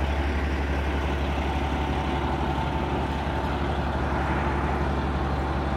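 Fire ladder truck's diesel engine running steadily, a low even drone with a faint steady hum above it.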